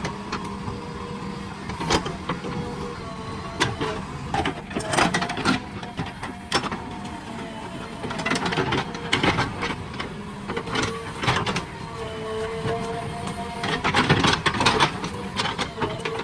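JCB earth-moving machine working: the diesel engine and hydraulics run with a whine that rises and falls, while sharp knocks and clanks come at irregular moments throughout.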